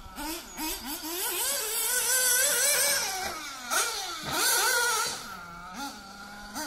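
Radio-controlled off-road car's motor revving up and down over and over as the car accelerates and slows around the track, with a high hiss that swells and fades.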